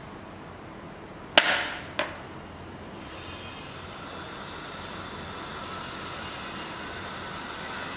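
Two knocks as a sneaker is handled: a sharp knock with a short ringing tail, then a lighter click about half a second later.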